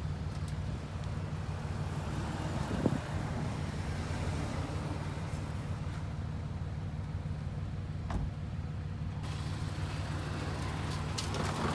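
Honda S2000's four-cylinder engine idling steadily, with a knock about three seconds in and a click near eight seconds.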